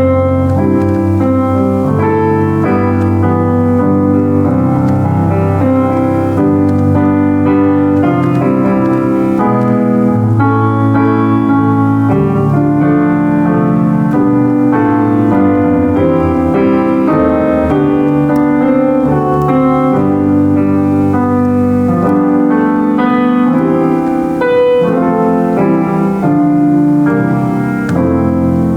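Solo piano playing continuously, with full chords and a flowing melody.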